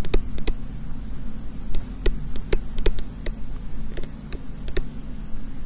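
A stylus tapping and clicking on a tablet screen while handwriting, a sharp click every fraction of a second at an uneven pace, over a steady low hum.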